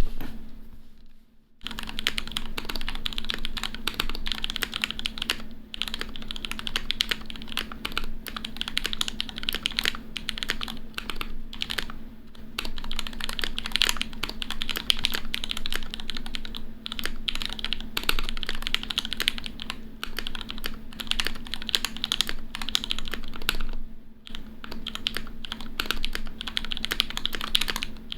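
Acrylic 60% mechanical keyboard with lubed Gateron Ink Yellow linear switches and GMK keycaps being typed on fast and continuously, a dense stream of keystroke clacks with a short lull near the end. A loud knock comes at the very start, and a faint steady hum runs under the typing.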